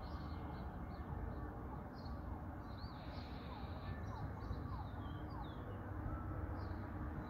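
Small birds chirping in short high calls over a steady low outdoor rumble, with faint gliding tones of a distant emergency-vehicle siren.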